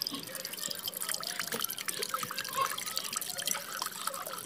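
A stream of water pouring into a metal pressure cooker, splashing and bubbling steadily as the pot fills.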